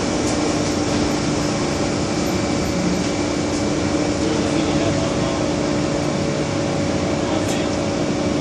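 Cabin noise of an MTR M-Train running in the tunnel: a steady rumble of wheels and running gear with a steady low hum.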